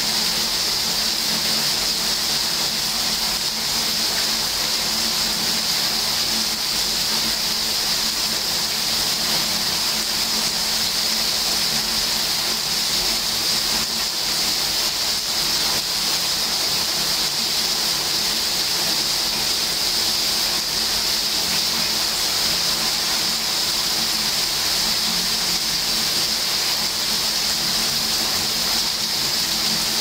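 Steady rainfall, an even, unbroken hiss.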